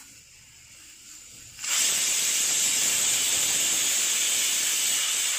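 Pressure cooker whistle going off: a loud, steady hiss of steam jetting out under the lifted weight. It starts about two seconds in and lasts nearly four seconds, a sign that the rice inside has come up to pressure; the rice is being timed by counting these whistles.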